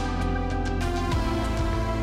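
Theme music: held chords over a deep, steady bass, changing about every second, with light percussive hits.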